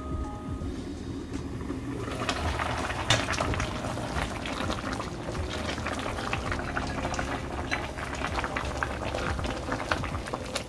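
Beef and young-cabbage doenjang soup bubbling at a boil in a pan, the crackling bubbles growing louder and clearer about two seconds in as the lid comes off. A ladle stirs through the soup near the end.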